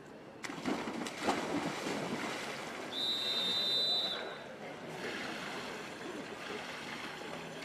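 Water splashing as swimmers push off a backstroke start, the noise rising suddenly about half a second in. About three seconds in, a steady high whistle blast sounds for about a second.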